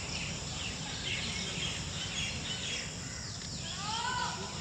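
Birds calling: a string of short chirps that arch up and down in pitch, one louder pair near the end, over a steady low rumble of background noise.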